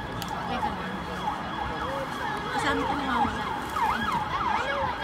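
An emergency vehicle's siren: a held tone that gives way to a fast rising-and-falling yelp, about three sweeps a second.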